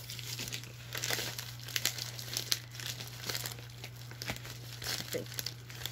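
Padded bubble mailer crinkling and rustling in irregular crackles as it is pulled and worked open by hand.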